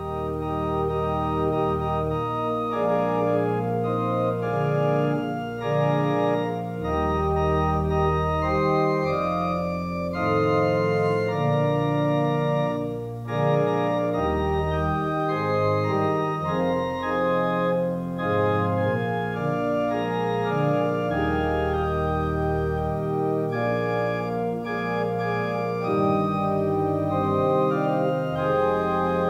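Organ playing a hymn tune as the response of praise, in held chords over a bass line that moves in steps. There is no singing.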